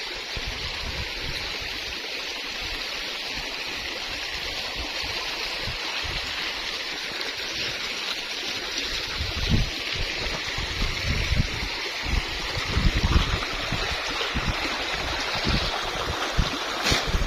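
A river running steadily over stones, a constant rushing hiss of water. In the second half, irregular low bumps, from wind or handling on the microphone, come in over the water.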